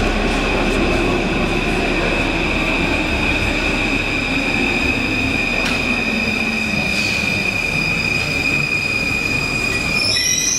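Paris Métro MF 01 train pulling into the station and braking: a steady high wheel squeal over the rumble of the cars, with a low whine falling in pitch as the train slows. Near the end a different set of high steady tones sets in.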